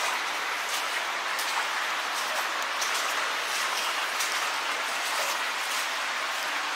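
Footsteps wading through shallow water on a concrete tunnel floor, splashing irregularly about once or twice a second over a steady hiss of running water.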